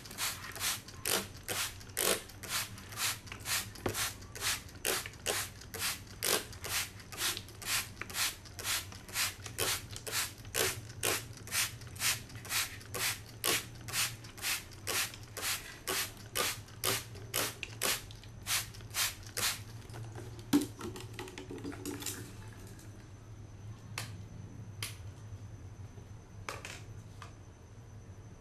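Hand trigger spray bottle squirting liquid onto a chrome-coated hard hat in quick, even squirts, about two a second, for some twenty seconds. After that come a few single squirts spaced a second or two apart.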